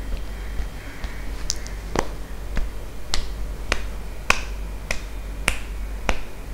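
A cupped hand patting lightly on the scalp as a tapping massage. Each pat is a sharp, hollow pop, about nine of them at a steady pace of a little under two a second, starting about a second and a half in.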